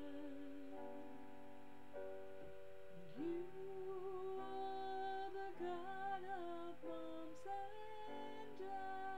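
A woman singing a slow, lullaby-like prayer song over held keyboard chords that change every second or two.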